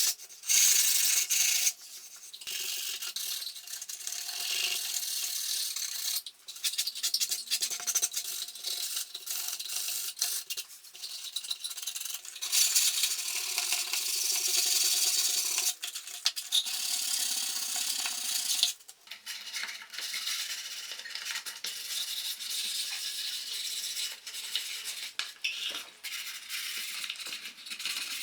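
Abrasive rubbing and scraping on the wood of an old cash-register drawer as its finish is worked off, in several short spells that stop and change abruptly at about 2, 6, 12, 16 and 19 seconds in.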